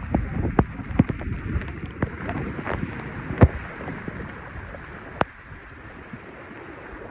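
Electric scooter wading through a flooded road: a steady rush of splashing water and wind on the microphone, with several sharp clicks and knocks, the loudest a little past the middle. The splashing eases off over the last couple of seconds.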